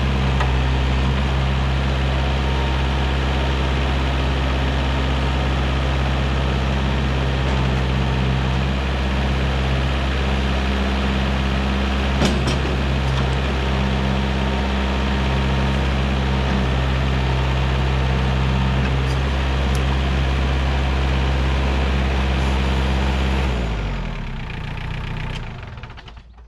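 TYM compact tractor's diesel engine running steadily at about 2000 rpm, half throttle, while its front loader is raised, curled and lowered through its full range, with a brief knock about twelve seconds in. About 24 seconds in the engine is shut off and runs down to a stop.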